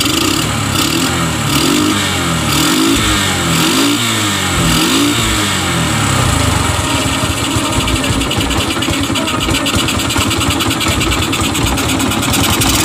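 STX125 motorcycle's single-cylinder engine running, now that a new pulser coil lets it start. The throttle is blipped about five times in the first half, the engine note rising and falling each time, and then it settles to a steady idle.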